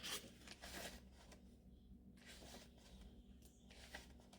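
Faint rustle and brush of hardback book pages being turned and handled, loudest in the first second, then a few soft touches over near-silent room tone.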